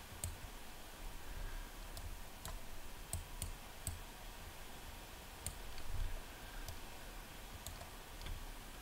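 Computer mouse clicking: about a dozen faint, sharp single clicks, spaced irregularly, over a low room hum.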